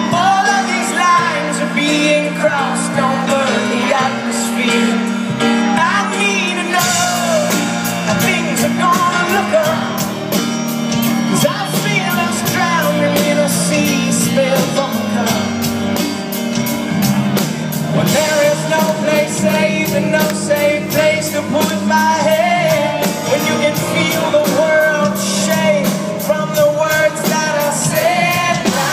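Live rock band playing with a lead vocalist singing, heard from the audience in a large hall. Drums and cymbals join in about seven seconds in.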